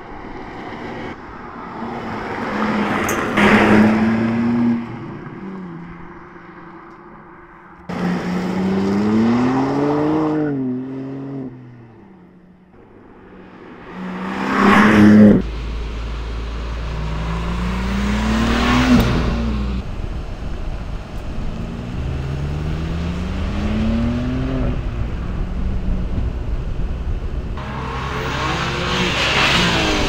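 BMW M2's 3.0-litre twin-turbo straight-six pulling hard: its pitch climbs and then drops again about six times as it accelerates and eases off. From about halfway in, a steady low drone sits under it.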